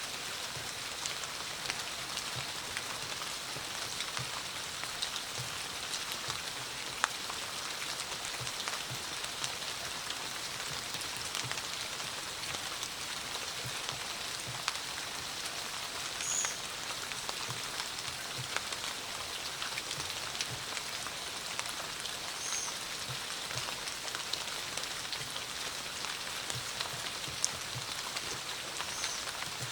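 Steady rain falling, a dense patter of drops with individual drips ticking through it. Three brief high chirps come in the second half.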